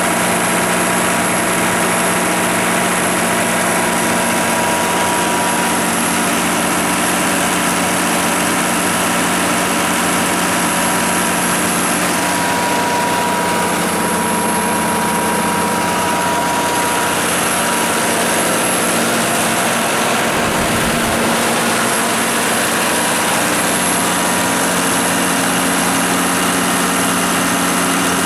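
Kohler 105 kW diesel generator set running at a steady constant speed, its John Deere 6059T six-cylinder turbocharged diesel engine giving an even, unchanging hum with a steady whine.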